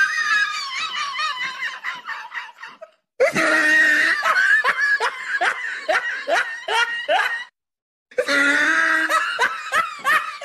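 High-pitched laughter: a rapid string of pulsing "ha" sounds, about three a second, in three stretches broken by short silences about three and about seven and a half seconds in.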